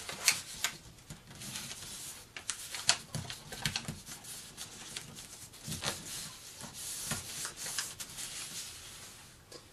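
Sheet of origami paper rustling and crinkling as it is folded and fingers press and rub the crease flat: a run of irregular soft crackles and rubs that thins out near the end.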